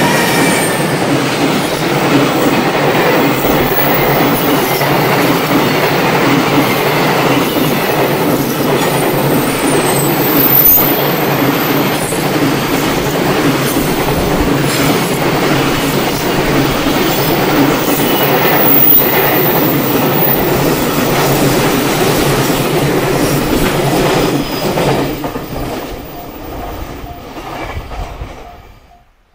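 An EF210 electric locomotive and a long train of container wagons passing close by: a loud, steady rumble of wheels on rail with repeated clatter over the joints and a faint high wheel squeal. The sound fades away over the last few seconds as the end of the train passes.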